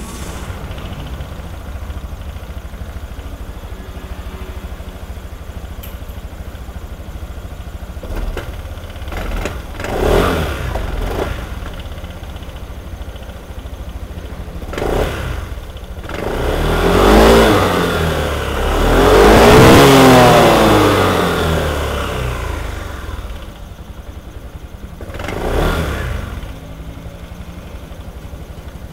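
A vehicle engine running unloaded at idle, blipped several times; the longest rev comes about two-thirds of the way through, rising and falling twice. The owner is recording an abnormal noise that it makes at idle with no load.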